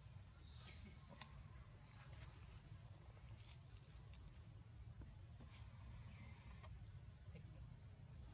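Faint, steady insect chorus: a high drone that does not let up, over a low rumble, with a few faint ticks.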